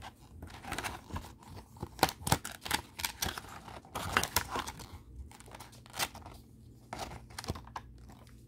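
Paper pages of a picture book rustling and crackling as hands turn and flatten them: a busy run of sharp crackles for about five seconds, then a few single ones.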